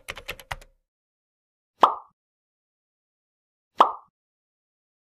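Edited outro-card sound effects: a quick run of sharp clicks at the start, then two short pops about two seconds apart, with dead silence between.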